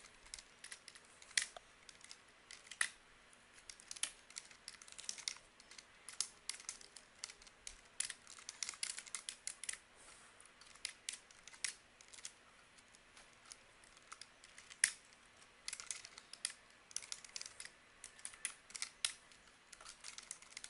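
Typing on a computer keyboard: faint, irregular runs of key clicks with short pauses between bursts.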